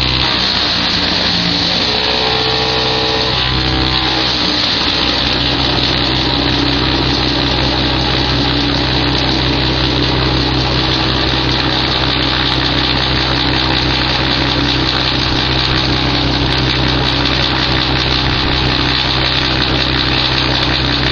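Fendt 920 Vario tractor driving a branch chipper through its power take-off, the engine and chipper running at a steady loud drone. The tone shifts during the first few seconds, then holds even.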